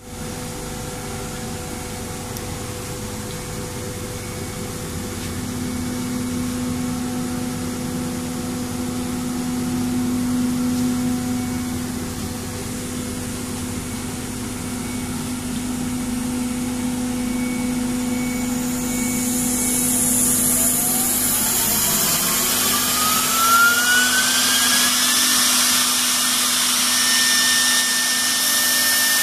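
CNC router machine running with a steady hum. About two-thirds of the way through, a whine rises in pitch and a high hiss builds and then holds.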